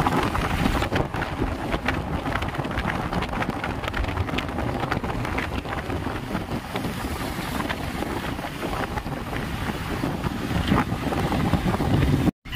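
Wind rushing and buffeting over a phone's microphone held at a moving car's open window, with the road and traffic noise of cars and motorbikes running beneath it. It cuts out abruptly near the end.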